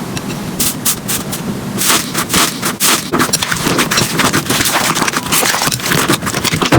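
Slime being squeezed and poked by hand: a dense run of wet clicks and crackling pops.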